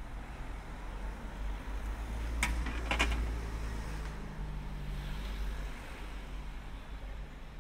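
City street ambience: a steady low rumble of road traffic, with a quick cluster of sharp clicks about two and a half seconds in.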